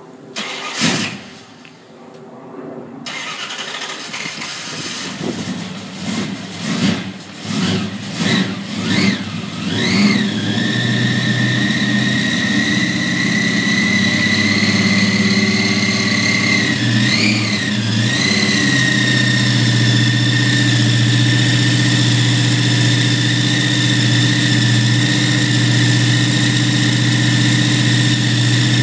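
Supercharged 440 cubic-inch Chrysler big-block V8 in a Dodge Charger being started for the first time: a short burst about a second in, then a run of revving bursts as it catches, before it settles into a steady idle with a high whine. The engine is blipped once more in the middle of the idle.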